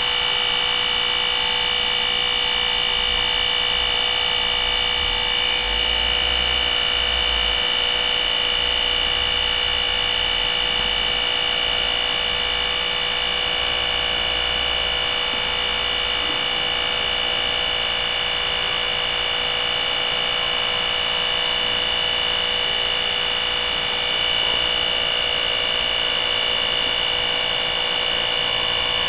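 A steady electric whine over a hum: several high tones hold unchanged throughout, with a low rumble underneath from about five to twelve seconds in.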